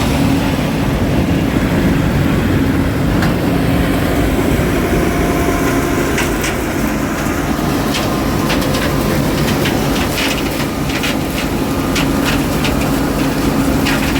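Farm machinery engine running steadily under load, with irregular clicks and rattles setting in about six seconds in.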